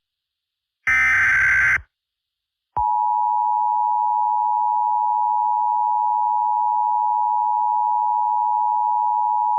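An Emergency Alert System SAME header data burst lasting about a second. After a second of silence, the steady two-tone EAS attention signal (853 and 960 Hz) starts and holds unchanged.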